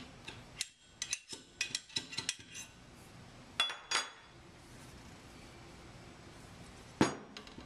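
Metal installation rod clinking and tapping inside a steel sampler housing as a seal is pushed down and seated, a run of quick sharp clicks. About three and a half seconds in come two louder knocks as the rod is laid down on the bench, and near the end a single sharp knock.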